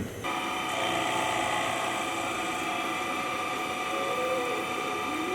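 Milling machine running steadily while contouring a block of titanium, a whine of several steady tones over a mechanical hum.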